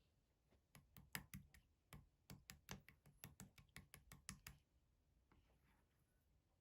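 A quick run of light, sharp clicks or taps, about five a second, that stops about two-thirds of the way through.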